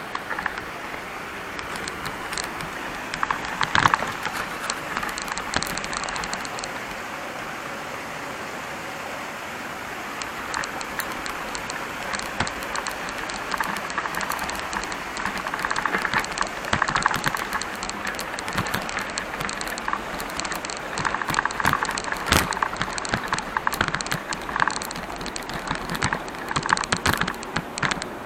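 Wheels rolling over a dirt and gravel track: a steady crunching hiss thick with small clicks and rattles, louder in several rough patches.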